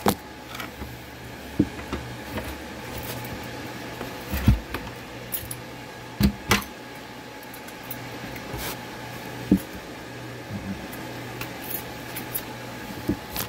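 A handful of sharp metallic clicks and knocks from hands working a stiff door lock and latch to unlock it, spread through the stretch, over a steady low machine hum.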